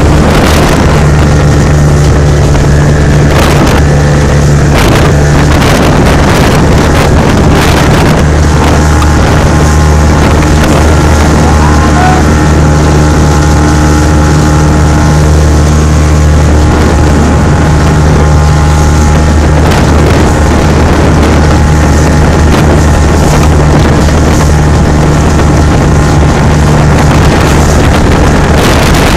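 Small motorboat's engine running steadily at high speed, loud and unchanging, with water rushing past the hull. Wind buffets the microphone, most in the first several seconds.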